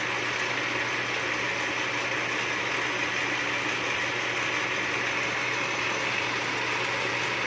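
Metal lathe running steadily, spinning a cold-rolled steel axle bar in its chuck: an even motor-and-gear hum with a constant hiss.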